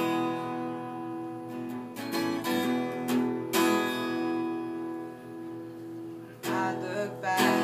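Acoustic guitar strummed, each chord left to ring between a handful of strokes: the opening of a song.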